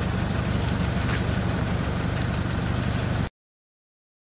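Hyster forklift's engine idling steadily, a low even hum that cuts off suddenly about three seconds in.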